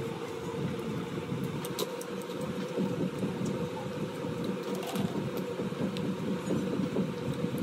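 Steady low mechanical hum with a constant tone, and a few faint clicks.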